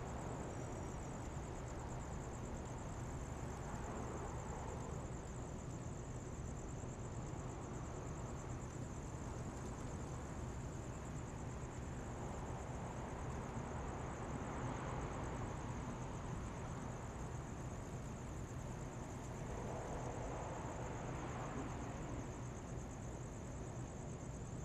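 Quiet city street ambience: a steady low hum of distant traffic, with cars passing by three times, about four seconds in, around the middle, and near the end. A steady high-pitched insect trill runs over it throughout.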